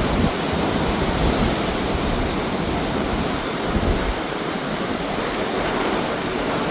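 Steady rush of river water flowing below, with wind buffeting the microphone in uneven low gusts.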